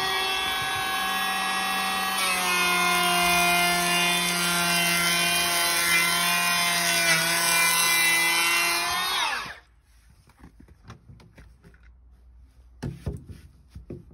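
Makita DKP181 cordless brushless planer running as it shaves along the edge of a wooden door, trimming its width: a loud, steady, high whine that stops abruptly about nine and a half seconds in. A few quiet knocks follow.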